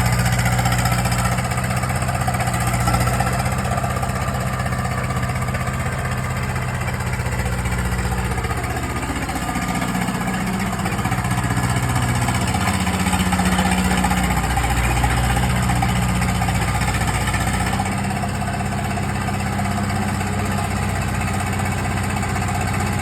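Caterpillar 951 track loader's diesel engine running steadily, its pitch shifting down and up a few times in the middle.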